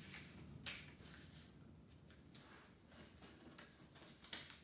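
Faint rustling and creasing of a small square of origami paper being folded by hand, with brief crisper rustles about a second in and near the end.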